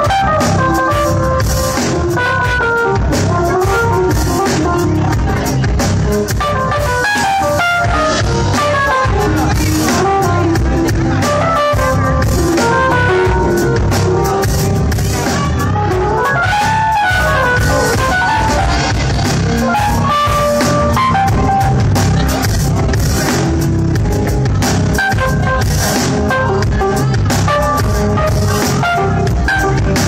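Live band music: a Yamaha electric keyboard playing a melody over a drum kit.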